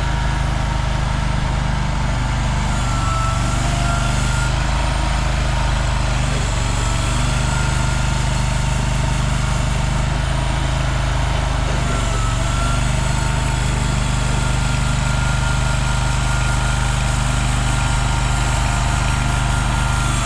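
Engine of a CFG Industrial XZ20R mini excavator running steadily, with a faint high whine that wavers slightly in pitch now and then.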